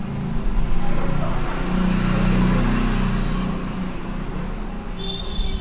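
A motor vehicle's engine, which swells about two seconds in and then fades, over a steady background rumble. A high steady tone starts near the end.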